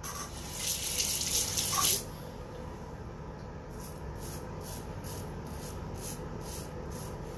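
Water running from a tap for about two seconds, then a quieter run of short, even swishes, about three a second.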